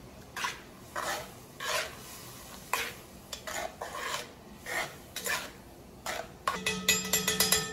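A metal spoon stirring bacon, onions and bouillon broth in a cast-iron Dutch oven, scraping the pot in repeated short strokes. Near the end comes a quick run of ringing metal clinks.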